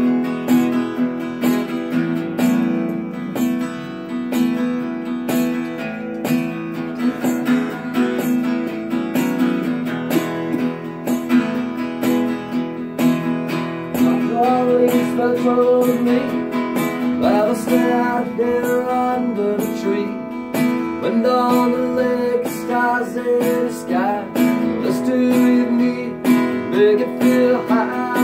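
Solo acoustic guitar strummed steadily through an instrumental break between verses. From about halfway in, single-note lead lines with bent notes ride over the strumming.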